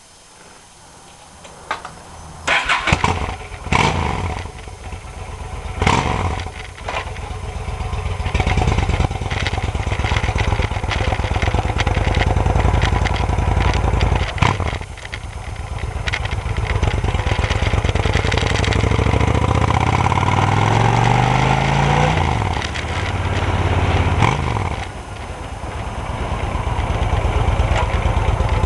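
Motorcycle engine starting a few seconds in with a few loud bursts, then running as the bike pulls away and rides. Its pitch climbs and drops again several times as it speeds up.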